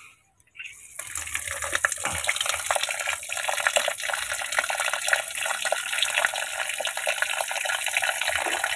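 A stream of water pouring from above into a plastic bucket full of wet green moss, splashing steadily; the flow starts about a second in.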